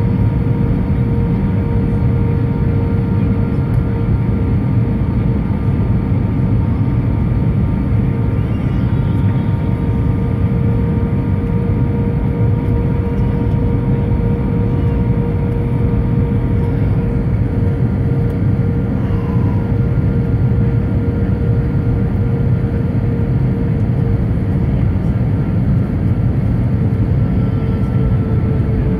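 Steady cabin noise inside an Airbus A319 in flight: airflow and engine noise with a deep rumble and a few thin, steady whining tones over it.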